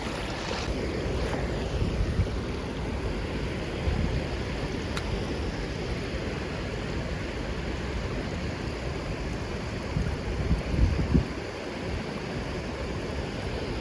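Wind buffeting the microphone, a steady low rumble, with a few stronger gusts about ten seconds in.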